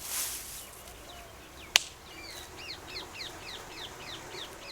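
A bird calls a quick run of about eight short chirps, roughly four a second, starting about two seconds in. Just before it comes a single sharp click.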